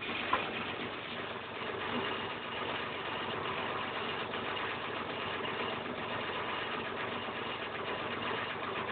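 Mini digger's diesel engine idling steadily, with a single short knock just after the start.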